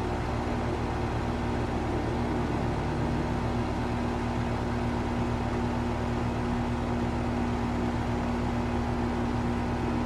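Goodman GSZ14 heat pump outdoor unit running in defrost mode: a steady hum with a constant low tone.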